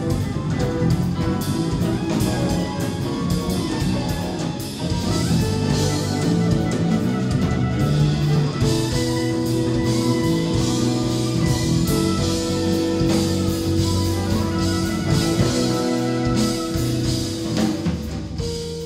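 Live jazz-rock fusion band playing: electric guitar, electric bass, drum kit, keyboards and soprano saxophone. Long held notes ring out from about halfway through, and the sound starts to die away near the end as the tune closes.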